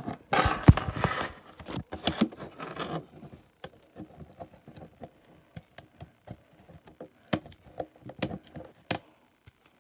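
Cellophane shrink wrap on a plastic CD jewel case crinkling as the case is handled, densest in the first three seconds, then thinning to scattered small crackles and clicks.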